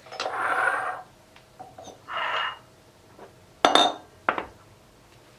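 Kitchen glassware and bowls being handled: two short rustling noises, then two sharp ringing clinks of glass or dishes knocked together a little past the middle.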